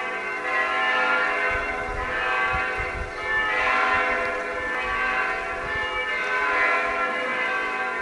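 Church bells ringing on without a break, many bell tones hanging over one another in one steady, ringing sound.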